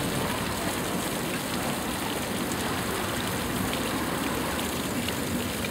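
Steady ambient noise of a busy pedestrian street crowd walking, an even hiss of footsteps and movement without any one clear event.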